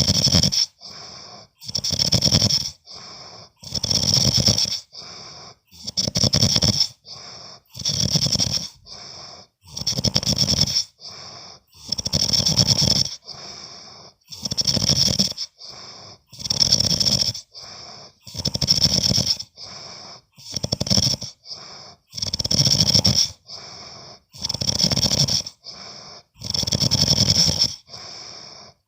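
A man snoring in his sleep: a loud snore about every two seconds, each followed by a quieter breath, in a steady rhythm.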